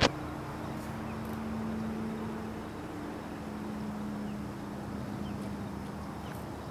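Steady low drone of a distant engine with a slight shift in pitch, over open-air ambience, with a few faint, short high bird chirps. A brief pop at the very start as the sound cuts in.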